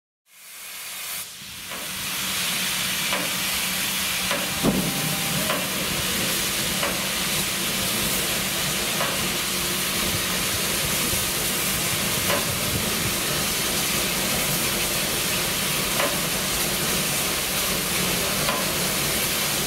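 ČSD class 555.3 steam locomotive (a rebuilt wartime Kriegslok) standing at the platform with a steady hiss of steam, fading in over the first two seconds, with a faint low hum and a few light knocks, one sharper about five seconds in.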